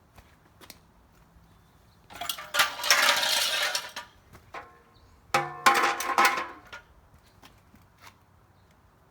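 Two kicks on the kick-start lever of a 1999 Kawasaki KX250 two-stroke, each a loud burst of mechanical clatter lasting a second or two, the second about three seconds after the first. The engine does not settle into running.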